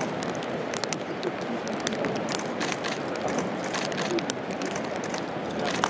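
Outdoor ambience of onlookers at a glacier as its ice arch begins to break up: a steady noise haze with faint murmuring voices and many scattered sharp clicks.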